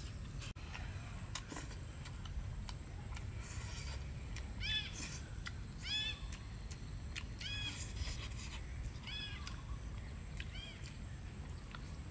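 An animal giving five short, rising-then-falling cries about a second and a half apart, starting near the middle, over a steady low rumble.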